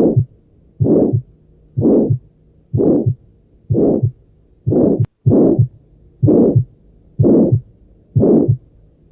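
Heart sounds with a murmur, as heard through a stethoscope: a whooshing noise with each beat alongside a short low thud, repeating regularly about once a second.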